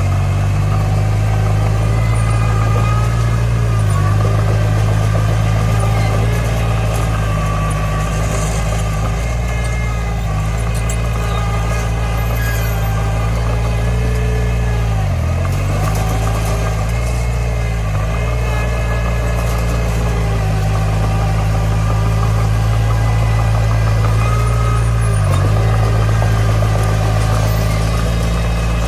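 Komatsu D20 bulldozer's diesel engine running steadily, its note briefly sagging in pitch four times.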